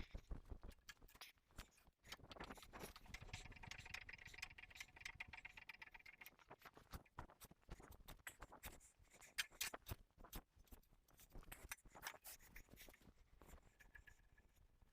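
Faint, irregular taps and clicks, with a faint steady whine for a few seconds near the start.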